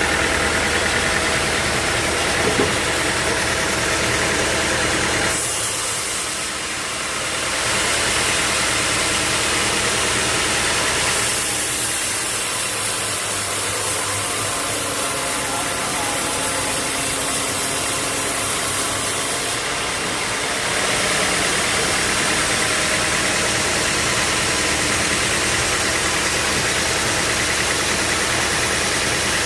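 Sawmill machinery running steadily with a motor hum and a loud hiss. Twice, briefly about five seconds in and then for several seconds from about eleven seconds, the low hum drops away and the high hiss grows stronger.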